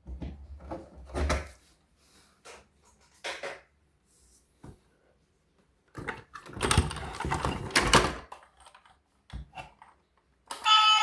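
Handling noises: irregular clicks, taps and rustles of objects being handled, busiest from about six to eight seconds in.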